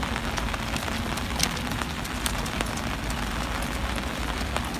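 Steady rain falling, with scattered sharp drops tapping close by.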